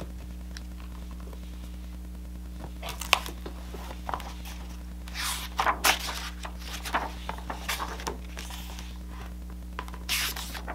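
Pages of a hardcover picture book being opened and turned by hand: a few scattered paper rustles and sweeps over a steady low hum.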